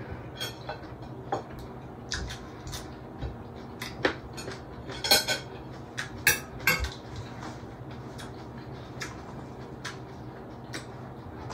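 A metal spoon clinking and scraping against plates and bowls at a dinner table, in scattered sharp clinks. The loudest cluster of clinks comes about five to seven seconds in.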